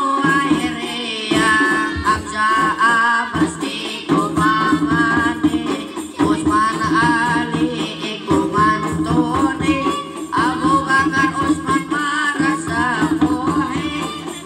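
Hadroh ensemble performing: a voice singing a wavering, ornamented devotional melody over hand-beaten rebana frame drums keeping a busy, steady rhythm.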